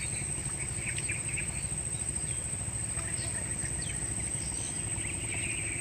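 Outdoor swamp-side ambience: scattered short bird chirps over a steady high-pitched insect drone and a low steady rumble.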